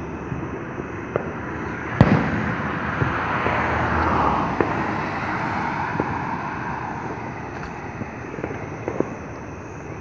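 Fireworks going off: one loud bang about two seconds in, followed by a rush of noise that fades over the next few seconds. Smaller pops are scattered before and after it.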